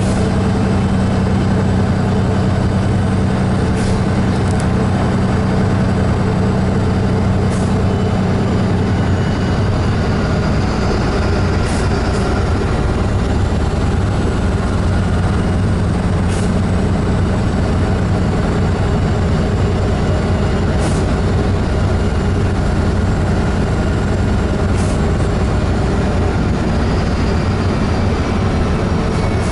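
Road vehicle heard from inside its cabin while driving: a steady engine hum and road noise, the hum changing pitch about nine seconds in, with faint clicks every four to five seconds.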